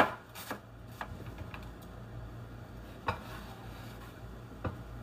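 Kitchen knife chopping cabbage on a wooden cutting board: two sharp chops in the first half second, then a few scattered light knocks and clicks as the board is handled and the shredded cabbage is pushed off it with the knife.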